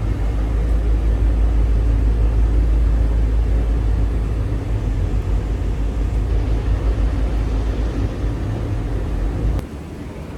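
Steady, loud low rumble of a moving vehicle, cut off abruptly near the end.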